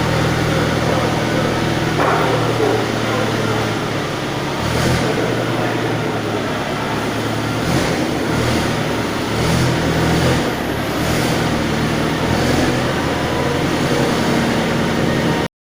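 An engine running steadily at low revs, its hum shifting in pitch now and then, with a few brief knocks and clatters over it.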